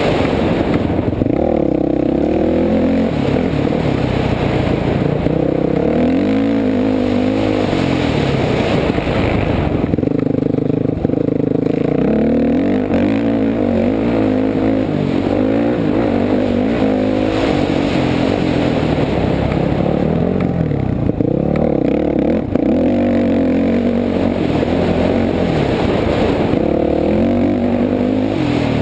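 Honda 450 dirt bike's single-cylinder four-stroke engine running hard under race throttle, its pitch climbing and dropping repeatedly as the rider accelerates, shifts and backs off, with constant rattle and rush on the bike-mounted GoPro microphone.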